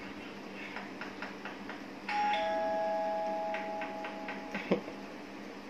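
Electronic two-note ding-dong doorbell chime, the higher note then the lower, starting about two seconds in and ringing on steadily for about two and a half seconds. A short sharp sound comes near the end.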